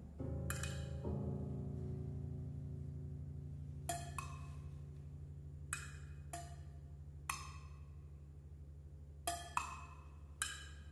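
Grand piano and drum kit in a quiet improvised passage: a low piano chord struck about a second in is held and slowly fades, while single sharp, woody knocks from the drums fall every second or two.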